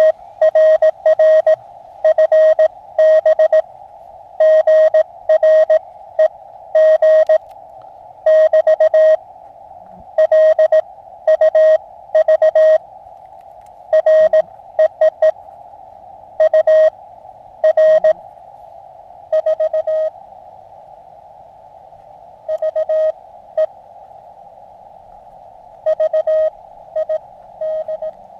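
Morse code (CW) from the Elecraft KX2 portable transceiver: a single steady tone keyed on and off in dots and dashes over a constant band of receiver hiss. The keying is loud for about the first twenty seconds, with a short break near the middle, then grows fainter and sparser.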